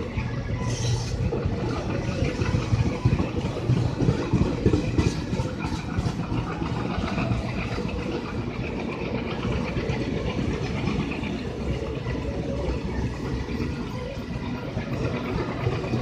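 WDG-3A diesel locomotive's ALCO 16-cylinder engine chugging heavily under load as the train pulls away, with a steady low rumble of the moving train. A short hiss about a second in.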